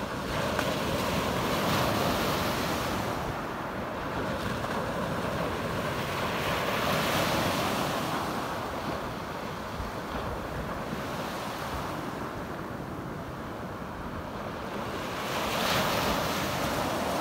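Small waves breaking and washing up a pebble beach, the surf swelling and fading in slow surges every several seconds. Wind rumbles on the microphone underneath.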